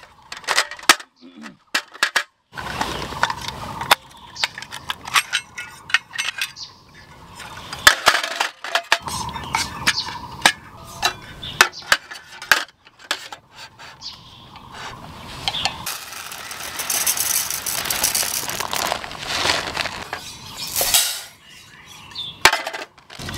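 Metal camping gear clinking and clattering as a folding aluminium table and a gas-canister stove are set up and a stainless steel cup is put down. Later there is a stretch of rustling hiss as dry rice is poured from a plastic bag into the cup.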